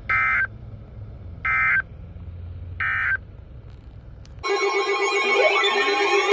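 Three short, buzzy data-tone bursts about 1.3 seconds apart: the Emergency Alert System end-of-message code closing a weather radio alert. About four and a half seconds in, a louder jumble of steady tones and sliding, siren-like tones starts up.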